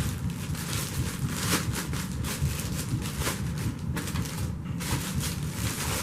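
Handling noise from unpacking a vacuum cleaner: irregular rustling, crackling and light knocks of plastic parts and packing material, over a steady low hum.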